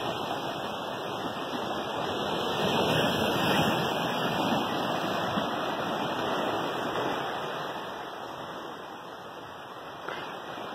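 Sea surf washing and breaking over rocks: a steady rushing that swells a few seconds in and eases off near the end.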